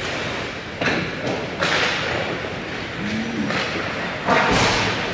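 Ice hockey pucks hitting the boards or net: three thuds, about a second in, another shortly after, and the loudest near the end, each ringing on briefly.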